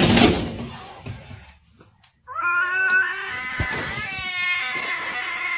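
A loud burst of noise at the start that fades away over about a second. After a short pause, a cat begins a long, drawn-out yowl at a steady pitch a little over two seconds in.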